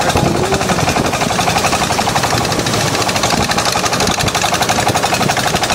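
Engine of a long wooden boat running under way, a loud, rapid, steady pulsing.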